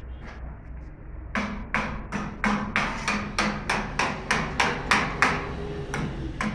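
A hammer striking repeatedly, about three blows a second, starting just over a second in and keeping on for about four seconds, then two more spaced blows near the end.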